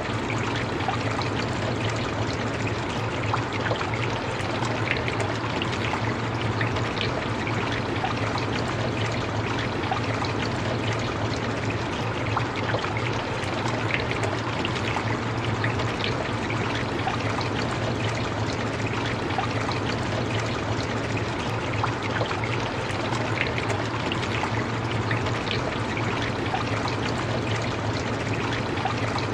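Steady rain: an even hiss of falling drops with scattered single drop ticks, over a constant low drone.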